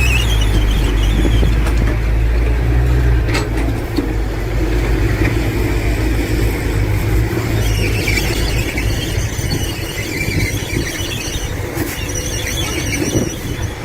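Heavy earthmoving machinery (excavator and dump trucks) running, a low diesel engine rumble that eases after about three seconds, with high-pitched wavering metal squeals coming and going over it.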